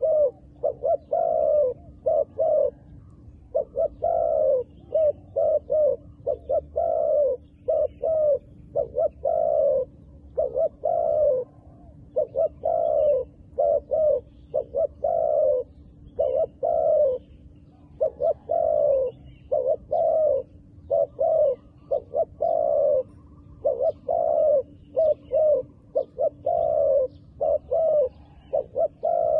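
Doves cooing: a steady, unbroken run of short coos that fall in pitch, about one or two a second.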